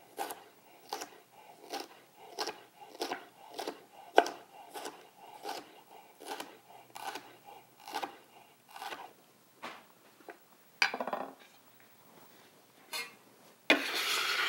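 Chef's knife slicing red bell pepper into thin matchsticks on a wooden cutting board, one steady cut about twice a second, each a short crisp knock of the blade through the pepper onto the board. The cutting rhythm stops about ten seconds in, giving way to a few scattered knocks and a longer, louder scrape near the end.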